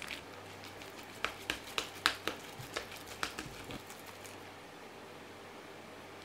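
Metal spoon clicking and scraping against a bowl while mixing mashed potato salad with mayonnaise: a run of sharp clicks, about four a second, starting about a second in and stopping near the middle.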